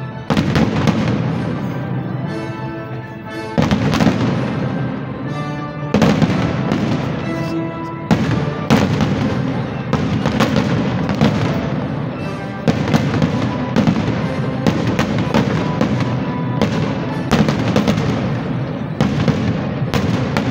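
Aerial fireworks shells bursting at a public display, loud bangs every second or two with crackle between them, over music playing throughout.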